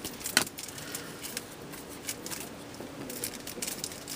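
Trading cards and their packaging being handled: light rustling and small scattered clicks, with one sharper click about half a second in.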